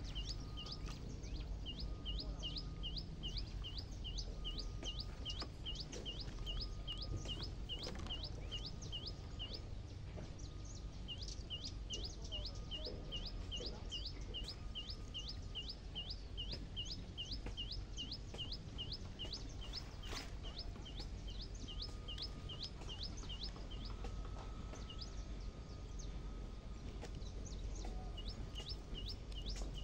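A short high chirp repeated evenly, about three times a second, breaking off briefly about a third of the way in and again for a few seconds toward the end, over a steady low outdoor rumble.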